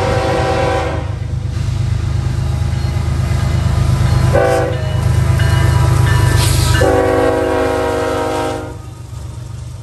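Horn of a Norfolk Southern GE ES44AC diesel locomotive blowing a long blast that ends about a second in, a short blast midway and a final long blast near the end, the close of a grade-crossing signal. Under the horn the locomotive's diesel engine rumbles loudly as it passes close by.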